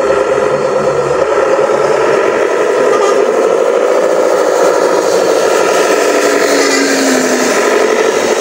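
Remote-control truck's motor and gears running steadily with a whine, its pitch wavering slightly.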